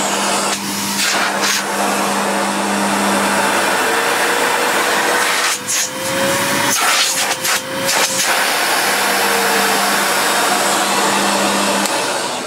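Sebo Airbelt C3 canister vacuum cleaner running on a reduced power setting: a strong rush of air over a steady motor hum, the airflow louder than the motor. Its pitch shifts for a few seconds in the middle as a hand is held at the open end of the hose handle, and it dies down near the end.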